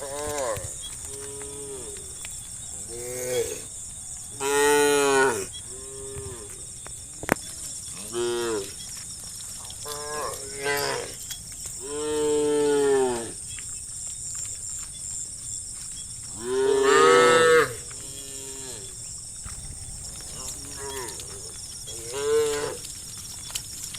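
Cattle mooing again and again: about a dozen separate moos of differing length and pitch, the longest and loudest about five, twelve and seventeen seconds in.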